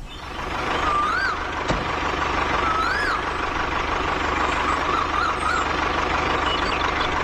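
A small motor on a DIY mini tractor model runs steadily with a fast low rattle and a constant high whine. A few short rising-and-falling whistles sound over it, and it cuts off suddenly at the end.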